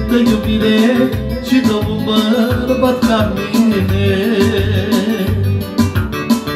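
Manele music: a backing track with a steady beat, bass and a plucked, guitar-like lead, with a man's voice singing over it at times.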